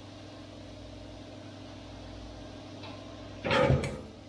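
Winery bottling machinery running with a steady, even hum. A brief loud clunk comes about three and a half seconds in.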